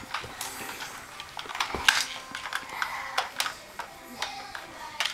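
Plastic toy cars and trucks clacking and knocking against each other as they are handled and set in a row on the floor: irregular clicks, with one sharper knock about two seconds in.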